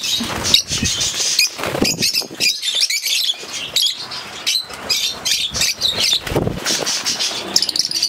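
A colony of rosy-faced lovebirds chirping and chattering constantly in high, shrill calls, with flurries of wing flapping as birds flutter up close, about a second in and again near the end.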